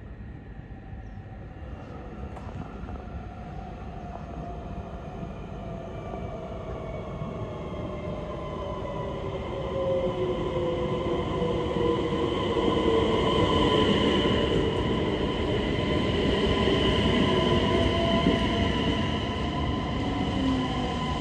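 Electric passenger train pulling into the station, its motors whining in several tones that slide down in pitch as it slows. The sound swells steadily as the train comes alongside the platform.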